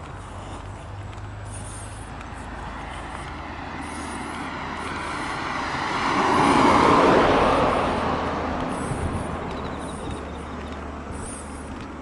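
A car approaches and drives past close by, its tyre and engine noise swelling to a peak about seven seconds in, then fading away.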